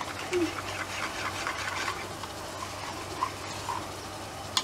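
Wire whisk stirring a thin flour-and-milk batter in a bowl, a soft wet swishing that is strongest in the first two seconds, with a sharp tap at the very end.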